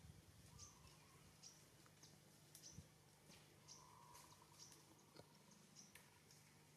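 Faint, short high-pitched chirps repeating irregularly, roughly once a second, over a quiet background.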